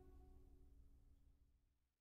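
The tail of the background music, a held note fading out to silence.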